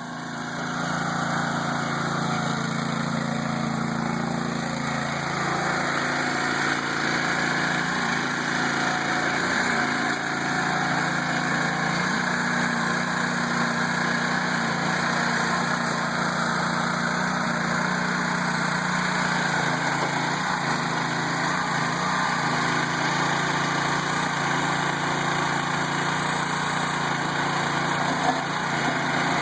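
Small engine of a Gofor towable backhoe running steadily, its pitch shifting slightly a couple of times.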